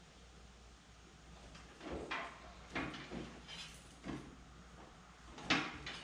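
A few separate knocks and clunks from a man moving about on a Cub Cadet riding mower and handling its seat. The loudest knock comes about five and a half seconds in.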